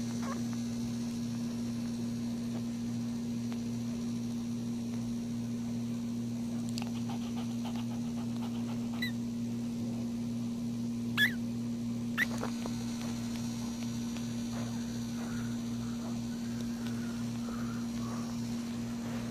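Steady low electrical hum, with newborn puppies nursing: three short high squeaks around the middle and faint soft grunts near the end.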